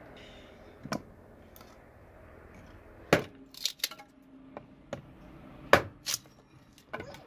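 Small hatchet chopping thin dry wooden boards into kindling on a wooden block: a handful of sharp, irregular chops and cracks of splitting wood, with lighter knocks of sticks between them.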